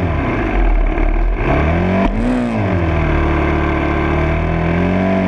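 Full-size motocross bike engine revving as it is ridden, its pitch rising and falling with the throttle: one quick rise and drop about two seconds in, then a slow climb near the end.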